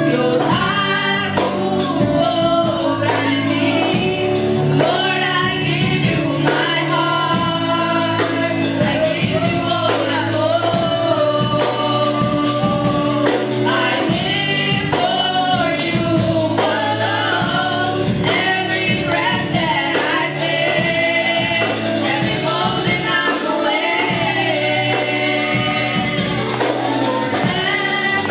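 Female voices leading a Spanish worship song into microphones over steady instrumental backing, with tambourine shaken throughout.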